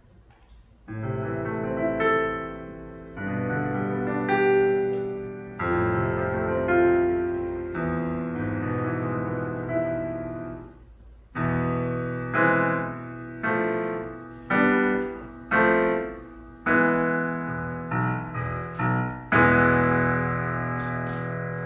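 Solo piano playing chords: sustained phrases, then a string of short detached chords, closing on a final chord held about two seconds.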